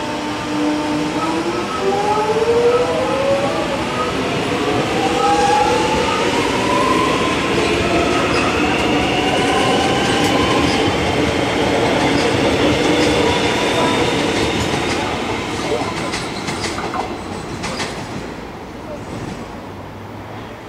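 Alstom X'trapolis electric train pulling away and picking up speed, its traction motors giving a whine that rises in pitch in several tones over the first seconds. Under it the wheels run on the rails, with a few sharp clicks over rail joints before the sound fades as the train recedes.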